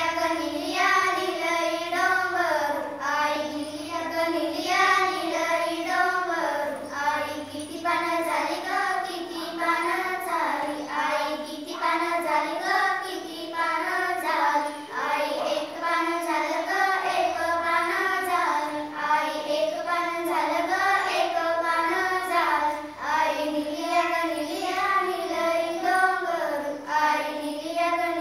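A group of young girls singing a Marathi folk song together in unison, one continuous melody line.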